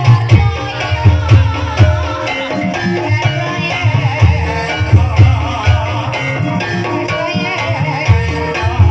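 Live Banyumasan gamelan music accompanying an ebeg horse dance: deep drum strokes repeat over steady metallic melody notes, with a wavering sung or piped line on top.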